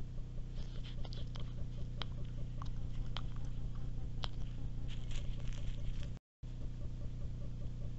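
Dry leaf litter crackling and ticking irregularly under a small animal moving close to a trail camera, over the camera's steady low electronic hum.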